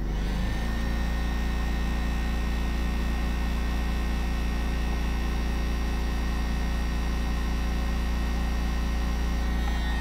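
Electric heat gun running, its fan blowing with a steady rushing noise, a strong low hum and a faint high whine; it comes on right at the start. It is heating heat-shrink tubing over a wire connector.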